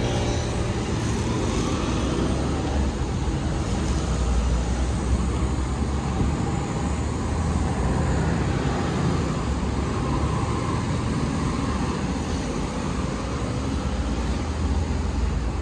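Steady street traffic noise from a busy city avenue: a continuous low rumble of passing cars.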